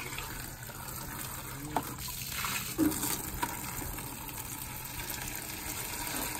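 Rainwater streaming from a rain barrel's spigot into a plastic bucket, a steady pouring and splashing. Two short knocks come about two and three seconds in.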